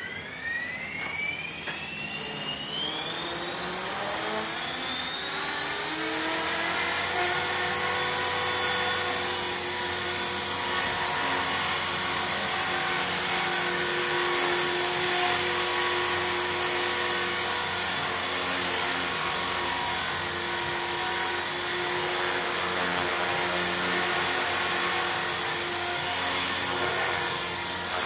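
Align T-REX 450 electric RC helicopter spooling up: a high, many-toned whine from the motor, gears and rotor climbs in pitch over the first six seconds or so, then holds steady as it lifts off and hovers. The main blades are out of track.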